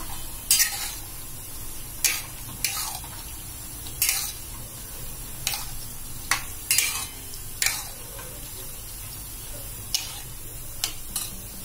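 Metal spoon stirring a thick mixed-vegetable curry in a stainless steel kadai, scraping and clinking against the pan about a dozen times at irregular intervals.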